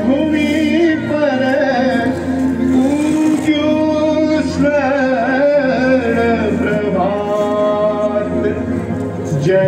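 A Gujarati song with a male lead voice singing a held, winding melody over continuous instrumental backing.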